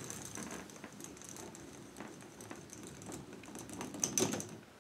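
Plastic balls rolling and clattering down the rod-and-connector track of a K'NEX ball machine: a light, uneven rattle of small clicks, with a louder burst of clicks a little after four seconds in.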